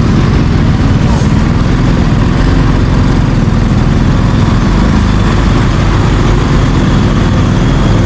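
Motorcycle underway: its engine running steadily under continuous road noise, loud and unbroken.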